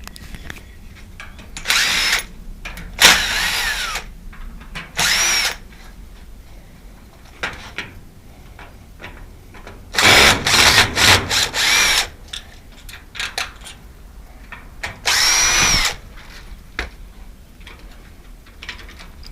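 Cordless drill run in several short bursts of half a second to two seconds, its motor pitch rising and falling as it speeds up and slows, with light tool-handling clicks in between.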